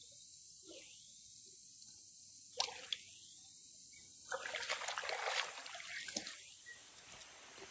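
Water sloshing and splashing in a shallow stream as a cooking pot is rinsed and a person wades out through the water, over the steady sound of the stream flowing. Two sharp splashes or knocks come about two and a half seconds in, then a louder stretch of splashing about four to five and a half seconds in.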